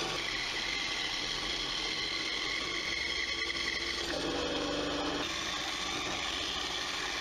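A Workzone benchtop bandsaw running steadily and cutting through blocks of hardwood. Its high whine changes pitch about four seconds in and again about a second later.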